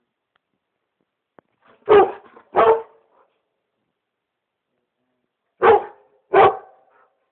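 Black Labrador retriever barking: two barks in quick succession, a pause of about three seconds, then two more.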